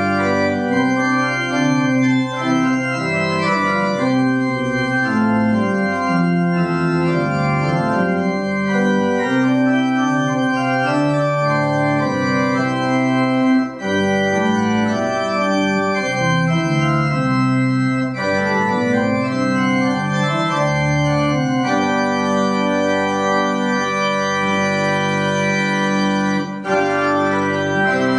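Organ music: slow sustained chords that change every second or so, with two brief breaks between phrases.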